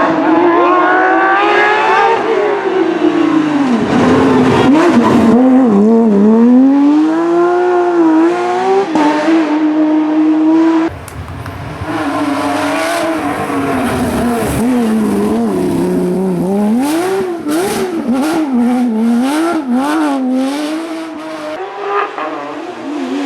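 Porsche 997 GT3's flat-six engine at racing speed, its pitch climbing as it revs up through the gears and dropping on each shift and under braking, over and over. The sound drops sharply about eleven seconds in, and a string of short clicks follows.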